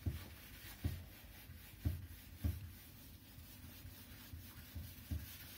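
A whiteboard being wiped with a crumpled paper tissue: faint rubbing, with a few soft low knocks as the board is pressed.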